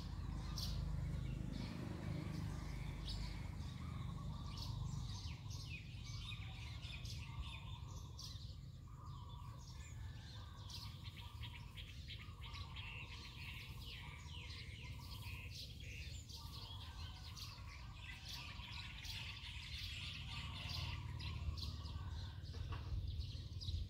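Many small birds chirping and calling over one another in a steady outdoor chorus, with a low rumble underneath.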